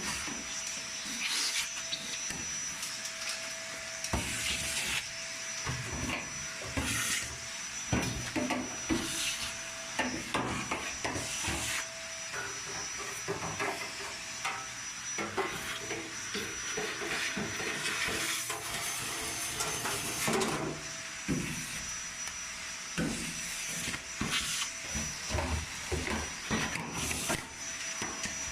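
Irregular knocks, taps and scraping of dryer parts being handled during cleaning, over a steady hiss with a faint high whine that drops out now and then.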